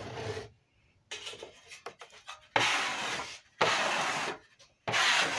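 A hand carving tool cutting into wood in a series of scraping strokes, each about a second long, with short pauses between them.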